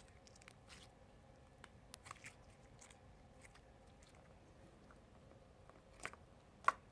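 Clear glitter slime being worked by hand, giving faint scattered sticky clicks and small pops, with one louder click near the end.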